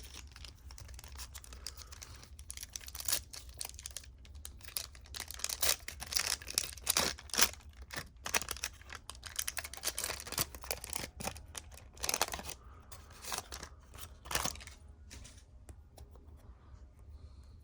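Trading card pack wrapper being torn open and crinkled: irregular crackling rustles, densest and loudest through the middle, over a faint low hum.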